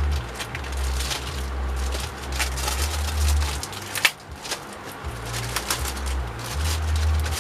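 Kit parts and packaging being handled: rustling and light clicks, with one sharp click about four seconds in, over a low steady drone.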